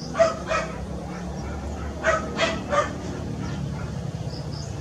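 A dog barking in short bursts: two barks just after the start and three more about two seconds in, over a steady low hum.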